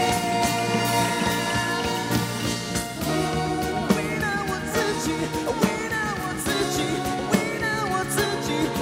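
A male singer singing a Mandarin song live with a rock band of electric guitar and drum kit, amplified through the hall's PA. A long held note sounds in the first couple of seconds, then the melody wavers over a steady beat.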